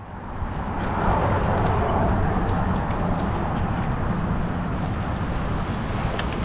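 Steady rumble of road traffic on the bridge, swelling about a second in as a vehicle passes, mixed with wind on the microphone.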